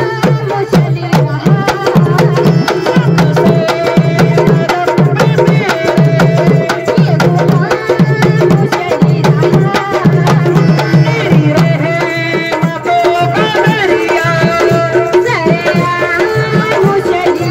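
Several dholak drums played together in a dense, driving rhythm under a melody on a portable electronic keyboard.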